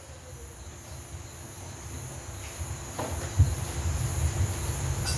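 Faint steady high-pitched insect chirring, with a low rumble on the microphone growing louder in the second half and a sharp knock about three seconds in.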